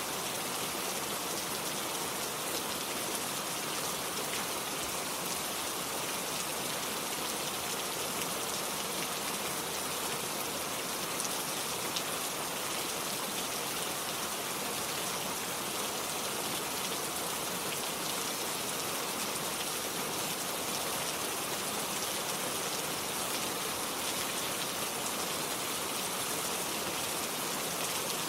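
Steady rain falling, a dense even hiss of many fine drops striking a surface.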